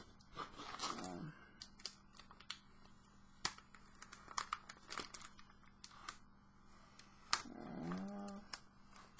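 Soft crinkling and scattered light ticks from a plastic Mylar comic-book sleeve being handled while packing tape stuck to it is picked at. A brief murmured hum comes near the start and again near the end.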